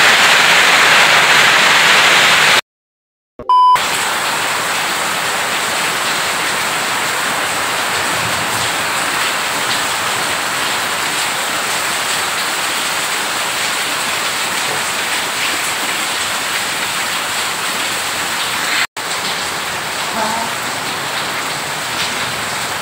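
Heavy rain pouring steadily. The sound cuts out for about a second near the start, then the rain resumes.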